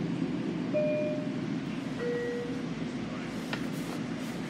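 Two-note descending chime inside a Long Island Rail Road M7 electric railcar, each note about half a second long, the high note followed by the lower one, typical of the door-closing signal. A steady hum from the car runs under it, and there is a short click about three and a half seconds in.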